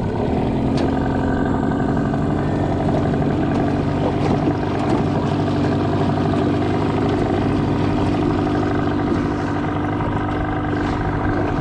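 Pull-start outboard motor idling steadily.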